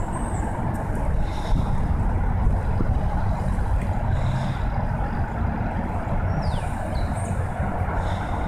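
Steady low outdoor rumble, with wind buffeting the microphone, and one faint high whistle sliding downward about six seconds in.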